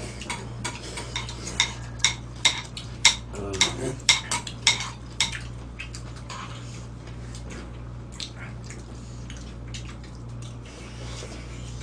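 Spoons and chopsticks clinking against stone bibimbap pots and bowls as several people eat: a quick run of sharp clinks over the first five seconds or so, then only a few, over a steady low hum.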